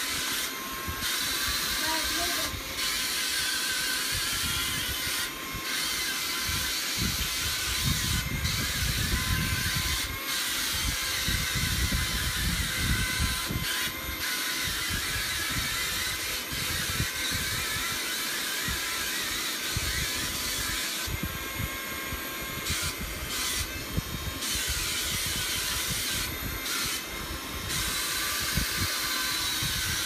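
Wall-climbing RC toy car's suction fan running with a steady whirring hiss, its pitch wavering a little as the car drives, over irregular low rumbling.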